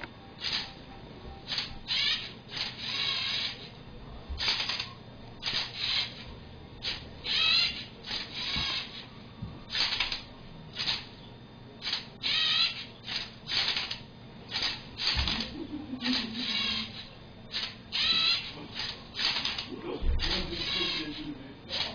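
Lego Mindstorms NXT servo motors running in short, irregular bursts, about one to two a second, with a whirring gear whine, as the robot turns and flips a Rubik's cube. A couple of low knocks come about two-thirds of the way in and near the end.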